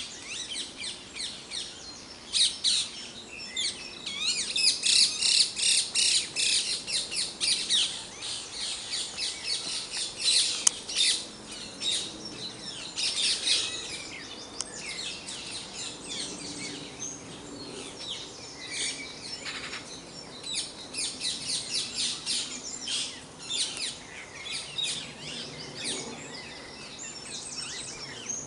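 Dawn chorus: many songbirds singing at once, a dense overlapping mix of rapid high chirps and song phrases that swells and eases without a break. There is a single sharp click about ten seconds in.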